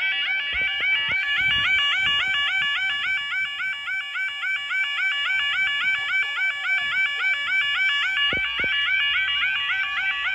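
Level crossing warning alarm sounding its yodel: a loud warbling tone that sweeps again and again at a quick, even rate, the signal that the barriers are down or coming down for a train.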